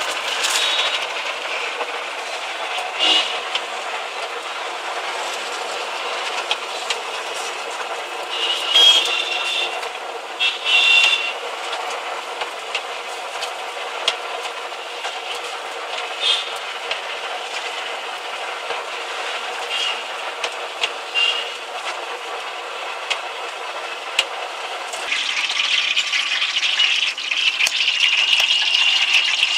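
Hot oil sizzling steadily in a large iron kadai as battered mushroom pakodas deep-fry, with a few short louder bursts now and then. The sizzle grows louder and fuller about 25 seconds in.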